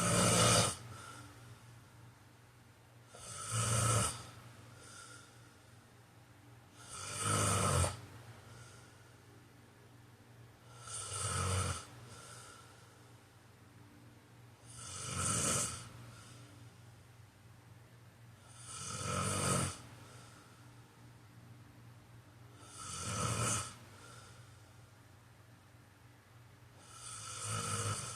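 A man snoring in a slow, even rhythm: about eight snores, each lasting roughly a second and coming about every four seconds, with quieter breathing between them.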